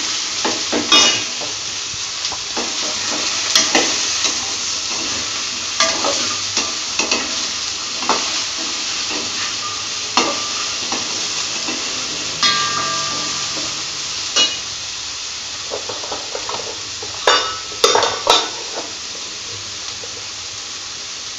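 Diced potato, carrot and soya chunks sizzling in oil in a wide metal pan, with a slotted metal spatula scraping and knocking against the pan as they are stirred. A few louder clacks of the spatula come near the end.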